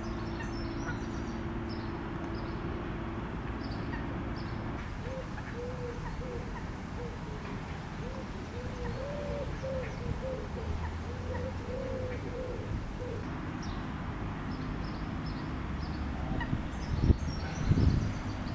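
Pond-side outdoor ambience with a steady hiss; through the middle a bird gives a run of short, soft, low notes that rise and fall, about two a second. Near the end come a few low thumps.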